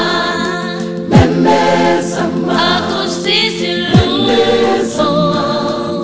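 Gospel music: a choir singing over a held chord, with a deep beat that drops in pitch, twice.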